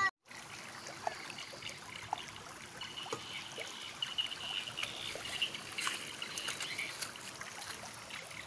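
Shallow stream trickling over gravel and pebbles, a steady water sound with small scattered clicks.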